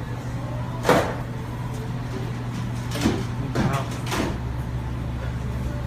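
A few short knocks and clunks, one about a second in and several between three and four seconds in, over a steady low hum.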